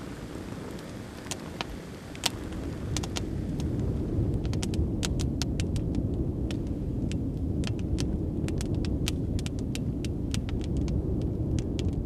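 Wood campfire crackling, with many sharp pops scattered irregularly and more frequent from about four seconds in, over a steady low rumble.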